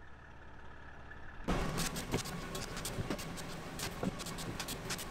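Scoop shovel scraping up spilled granular fertilizer and tipping it onto the steel grate of a conveyor hopper, starting about a second and a half in: gritty scrapes and the rattle of granules, over the steady hum of a motor running.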